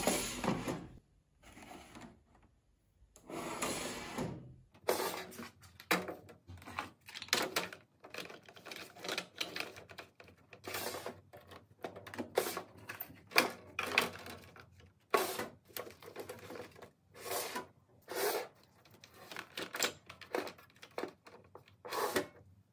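Storage trays being slid and set onto the shelves of a desktop organizer: an irregular run of clacks, knocks and short scrapes, sparse at first and coming thick and fast from about five seconds in.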